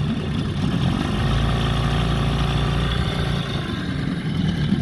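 Veterok-8 two-stroke outboard motor, fitted with a Stihl MS 660 chainsaw carburettor, running at idle. Its note grows stronger and steadier from about a second in until about three and a half seconds in.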